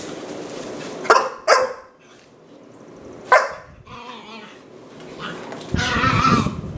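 Dogs in rough play: three short, sharp barks about a second, a second and a half, and three seconds in, then a louder stretch of play growling and scuffling near the end.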